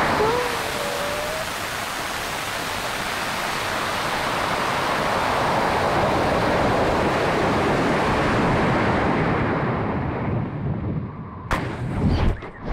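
Rocket's onboard-camera audio on a 54 mm sugar motor: a loud, steady rush of motor exhaust and airflow from liftoff, with a brief wavering whistle in the first second, easing off as the rocket coasts upward. About eleven and a half seconds in comes a single sharp pop as the ejection charge deploys the parachute, followed by choppy wind buffeting.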